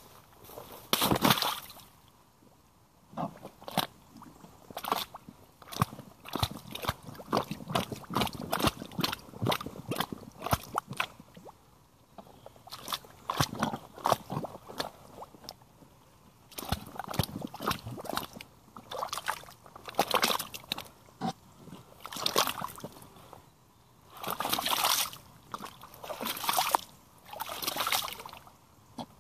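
Rubber boots stepping and sloshing through a shallow puddle of liquid mud, each step a wet splash or squelch at an uneven pace. The heaviest splashes come about a second in and again near the end.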